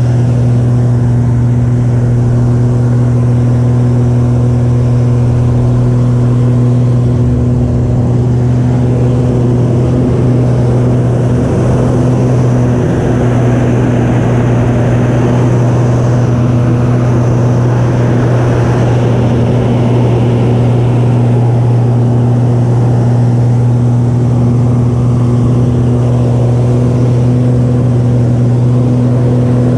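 Extra 300S aerobatic plane's Lycoming six-cylinder engine and propeller droning at an even pitch, heard from inside the cockpit. A higher hiss swells in the middle and fades again.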